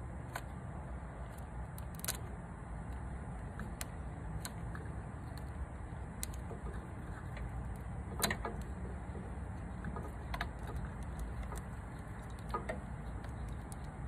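Bandage shears snipping through the plastic housing of a headlight wiring harness: about seven short sharp clicks, one every second or two, over a steady low rumble.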